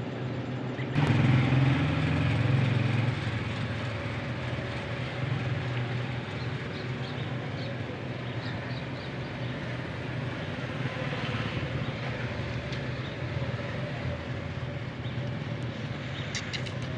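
Steady low engine hum, louder for about two seconds starting about a second in.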